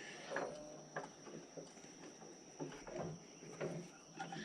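Faint, scattered clicks and knocks of hand work on machine parts, over a steady, thin high-pitched whine.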